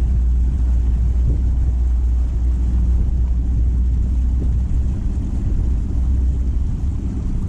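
Bass boat's outboard motor running under way, a steady low rumble with wind noise on the microphone.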